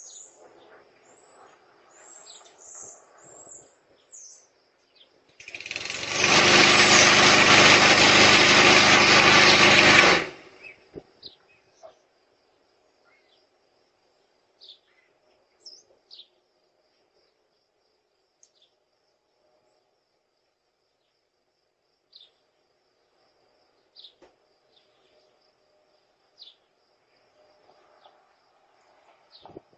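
A loud motor runs steadily for about five seconds, starting about five seconds in and cutting off abruptly, over scattered faint bird chirps.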